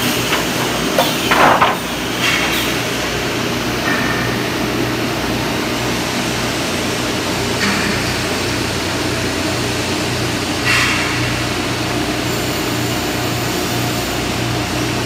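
FL-03 finger jointing line running: a steady mechanical drone with a constant low hum, broken by a few sharp knocks, the loudest about a second and a half in.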